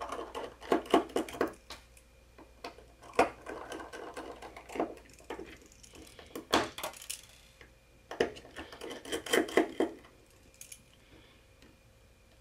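Runs of small, quick metal clicks and ticks as a precision Phillips screwdriver works the tiny screws out of a GoPro Hero 4 camera body. A few sharper single clicks fall between the runs.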